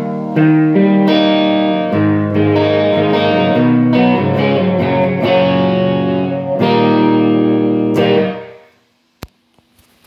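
Electric guitar played through an Orange amp head into a Marshall cabinet: a run of chords struck and left to ring, fading out about a second before the end, followed by a single sharp click.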